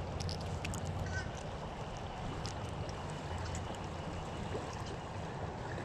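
Creek water running steadily under a low rumble, with scattered small splashes and clicks.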